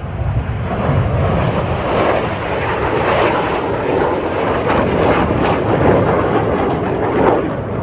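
BAE Hawk T1 jets of the Red Arrows passing low, their Adour turbofan engines making loud jet noise that swells at the start and stays loud until it eases near the end.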